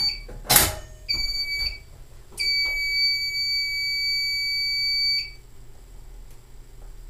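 Fire-Lite fire alarm control panel's piezo sounder giving a high-pitched steady tone for a supervisory condition: a short tone, a sharp click about half a second in, another short tone, then a longer tone of about three seconds that cuts off a little after five seconds in.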